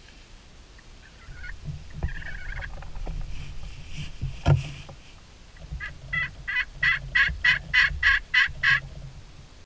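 A turkey call of the slate type, scratched with a striker, making a few soft notes and then a quick run of about a dozen turkey yelps that swell and then fade. Under it are the low rumble and rustle of people shifting in the blind, with one sharp knock about halfway through.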